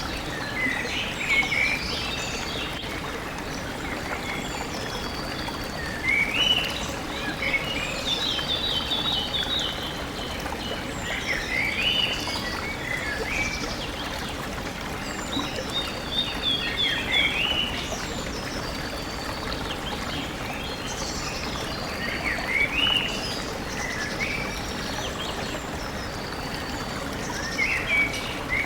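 A stream running steadily, with birds singing short phrases of quick rising chirps over it every few seconds.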